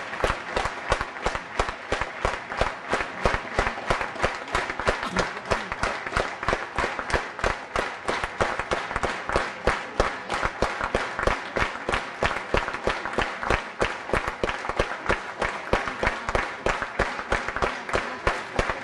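Audience applauding, clapping together in a steady rhythm.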